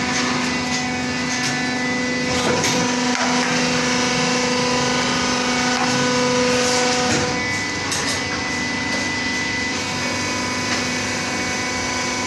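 Vertical injection moulding machine running: a steady mechanical hum made of several held tones, which shifts about seven seconds in, with a few faint clanks.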